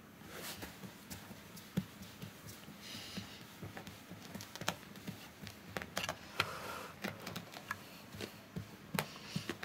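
A hand stroking a cat's fur: soft rustling strokes with many small scattered clicks and taps.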